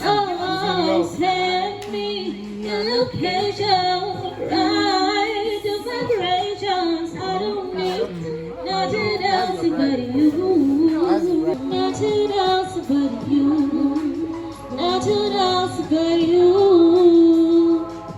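Music: a song with a woman singing over instrumental backing.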